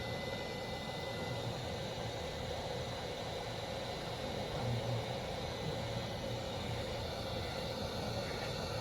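Steady background hiss with a low hum and faint steady tones running through it, with no distinct events.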